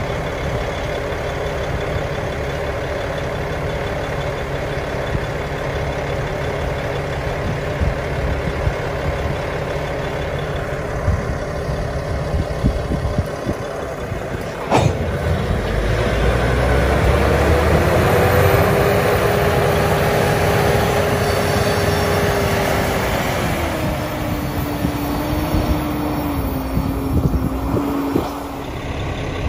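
Diesel engine of a Brandt road-rail truck working as it moves a string of hopper cars along the rails: a steady run, a sharp knock about halfway, then the engine revs up and holds, easing down in steps near the end.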